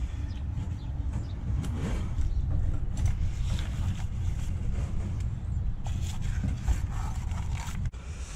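A steady low rumble, with scattered scraping and tapping as mortar is pulled out of the joints beside a flagstone set in a mortar bed and the stone is pressed down.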